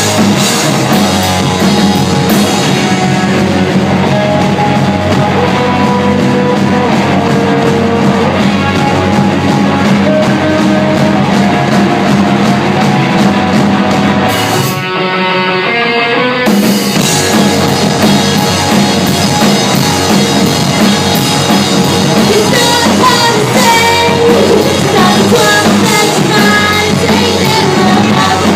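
Live rock band playing: electric guitars, electric bass and a drum kit with a woman's vocals. About fifteen seconds in, the drums and cymbals drop out for a moment, leaving only sustained notes, then the full band comes back in.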